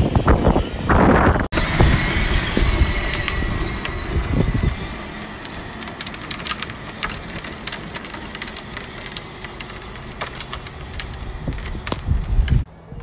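Battery-powered children's ride-on toy car driving over asphalt: its plastic wheels rumble and crackle, and the sound grows fainter after about five seconds as it moves away.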